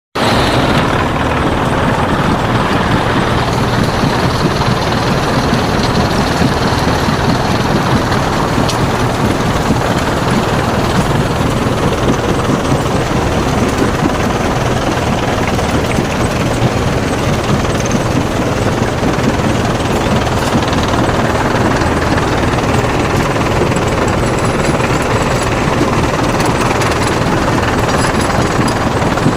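Heavy construction machinery running steadily without a break, a loud dense noise across low and high pitches alike.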